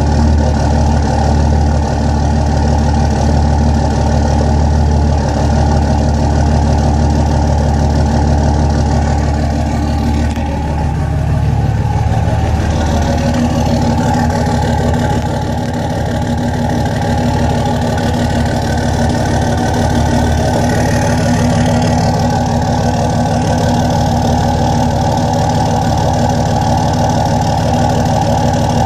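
Engine idling steadily, its note dipping and shifting briefly about ten seconds in. The owner suspects a bad fuel injector.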